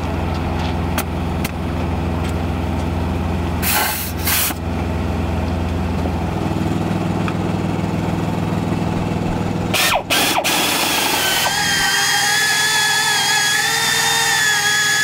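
Drill running steadily as it bores out bolt holes in a truck's steel frame, its pitch dropping about six seconds in. Near the end a wavering high-pitched squeal joins it.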